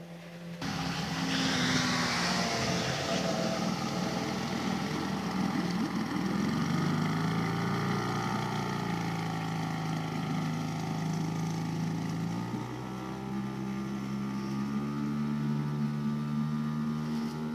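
Small outboard motor driving a PVC inflatable boat, running steadily with a hiss over it. Its note drops about six seconds in and rises again about twelve seconds in.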